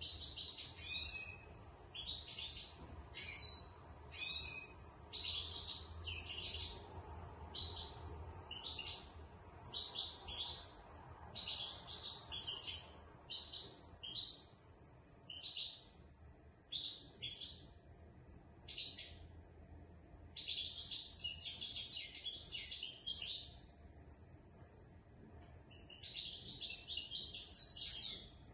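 Caged European goldfinch of the large 'major' race singing: quick, high twittering phrases of about a second each with short pauses between them, and two longer runs of about three seconds in the last third.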